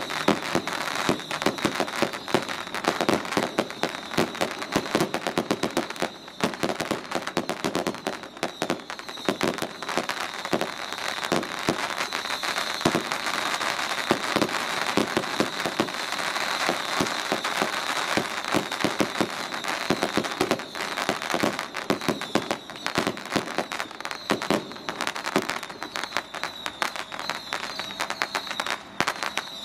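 Strings of firecrackers going off in a continuous, rapid crackle of bangs.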